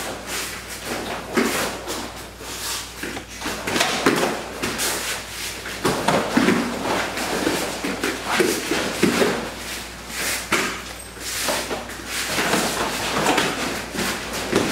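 Two karate practitioners sparring barefoot on floor mats: irregular scuffs and thumps of feet and bodies, with the rustle of heavy cotton gis as they clinch, and a heavier thud as one is thrown near the end.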